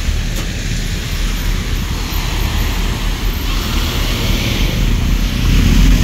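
Road traffic on a flooded, rain-wet street: tyres hissing and swishing through standing water over a steady low engine rumble, growing louder near the end as vehicles pass close.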